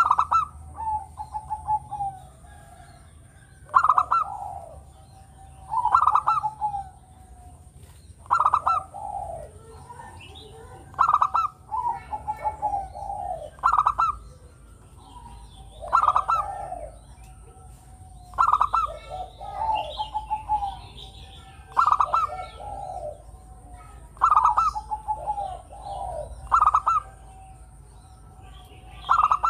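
Zebra dove (perkutut) cooing over and over, a new phrase about every two seconds. Each phrase is a quick run of short staccato notes followed by a lower rolling coo.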